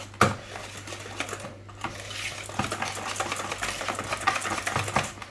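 Hand whisk beating a thick cake batter in a bowl, its wire tines clicking and scraping quickly against the bowl, with one sharp knock about a quarter second in.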